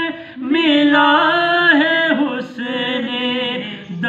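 A man singing an Urdu naat unaccompanied, drawing out long held notes with melismatic turns. He pauses briefly for breath about half a second in and again about two and a half seconds in.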